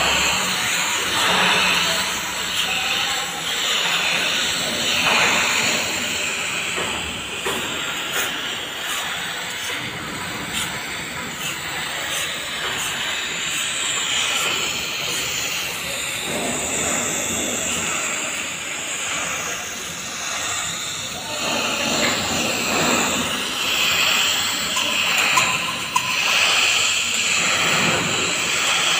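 TIG welding arc on a steel pipe joint, a steady hiss.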